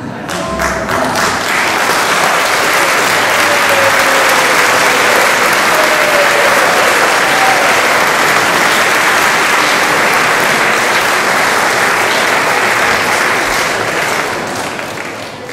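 Audience applauding steadily after a piece ends, the clapping dying away near the end.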